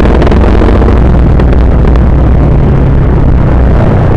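Yamaha Mio Sporty scooter's stock engine, fitted with a 28 mm Keihin carburettor, running steadily on the move, loud and mixed with a heavy low wind rumble on the microphone.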